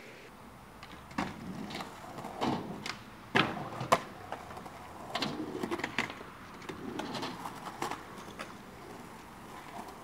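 Skateboard on a metal ramp: a string of sharp clacks and knocks as the board and trucks hit the ramp and coping, loudest about three and four seconds in, with stretches of wheels rolling in between.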